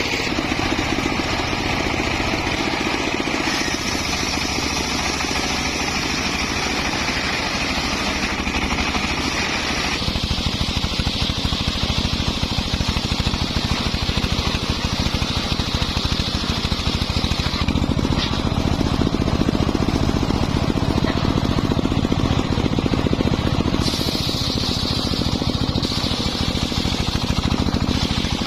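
Homemade engine-driven circular saw running steadily while cutting wood. Its blade whine shifts pitch a few times as the load changes.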